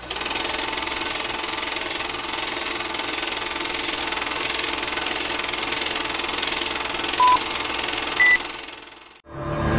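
Steady running noise of an engine or machine, with two short beeps near the end, the second higher than the first; the noise then fades out.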